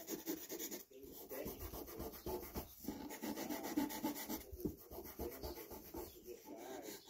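Drawing pencil scratching and rubbing on paper in short, uneven strokes.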